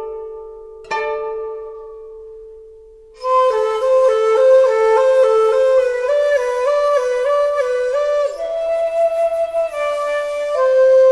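Background music: a couple of plucked notes ring out and fade, then a sustained woodwind melody comes in about three seconds in and steps up and down in pitch.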